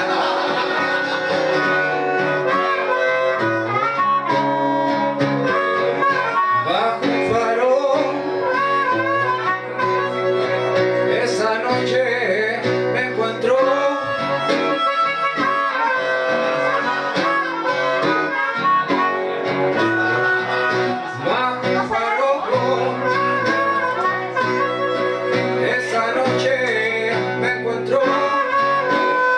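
Live blues from a harmonica and an acoustic guitar: the harmonica plays bending, sliding notes over a steadily strummed and picked guitar, both amplified through microphones.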